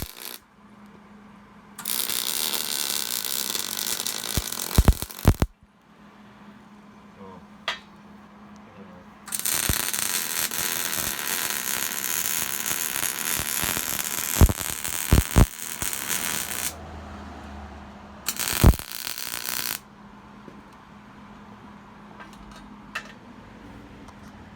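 Wire-feed welder laying beads in three bursts of steady crackling arc: a few seconds long about two seconds in, a longer one of about seven seconds near the middle, and a short one near the end. A few sharp clicks and a faint steady hum fall between the welds.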